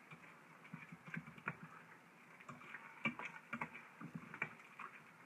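A spoon stirring rice mixture in the stainless-steel inner pot of an Instant Pot: faint, irregular scrapes and taps of the spoon against the pot.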